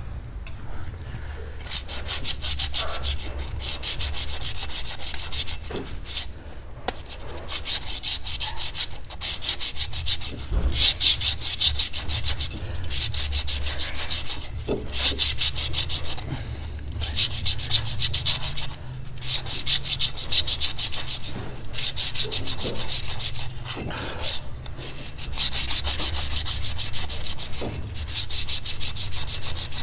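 80-grit sandpaper rubbed by hand back and forth over the face of a Honda Civic's rear brake disc, in runs of a few seconds with short pauses between. It is scuffing off the glazed film on the disc that can cause unwanted brake noise.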